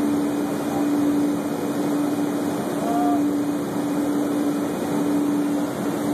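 Heavy industrial machinery running steadily: an even rumble with a constant hum on one note.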